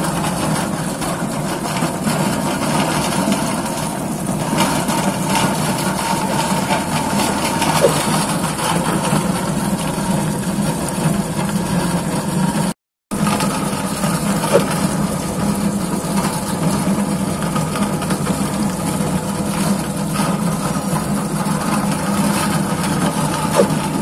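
Electric-motor-driven potato peeling machine running with a steady hum, while wash water pours out of its outlet chute and splashes on the floor. The sound cuts out for a moment about halfway through.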